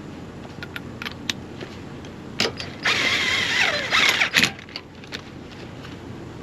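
A few light metallic clicks, then an Ingersoll Rand 1/2-inch impact wrench runs in short bursts for about two seconds near the middle, its pitch wavering and dropping as it drives lug nuts onto the wheel.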